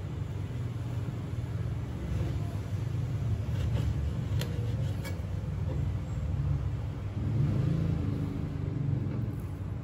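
A steady low background rumble, with a few faint ticks about halfway through.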